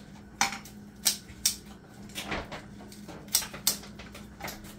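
Sharp kitchen scissors snipping through dried beef, a string of crisp, irregularly spaced cuts, roughly one to two a second.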